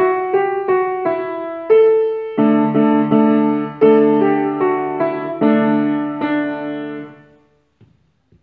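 Grand piano played solo, a melody over held chords, ending the piece: the final chord fades out about seven seconds in, followed by two faint knocks.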